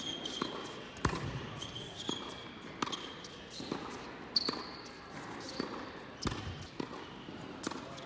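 Tennis rally on an indoor hard court: sharp knocks of the ball off the racket and court, about one every half second to second, with short high sneaker squeaks in between, echoing in the large hall.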